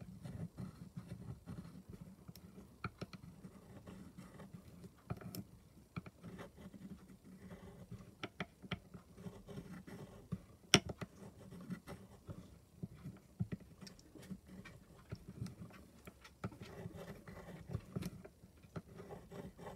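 Agate burnisher rubbing along the rim of a silver bezel, burnishing it down over a cloisonné enamel: a run of soft, irregular scratches and small ticks, with one sharper click about eleven seconds in.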